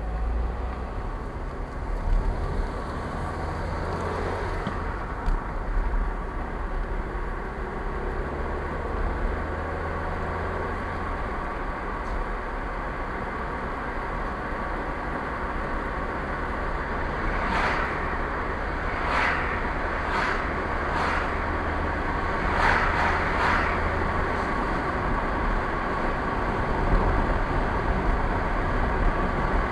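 Steady engine and tyre noise of a car being driven, heard from inside the cabin. A low hum runs until near the end, and a handful of short sharp noises come about two-thirds of the way through.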